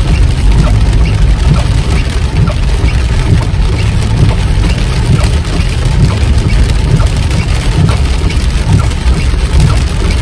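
A car driving in rain: a steady low rumble of engine and tyres on wet road, with rain hitting the car.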